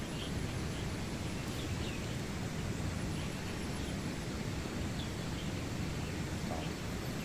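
Outdoor ambience: a steady low rumble with faint, short high chirps of birds now and then.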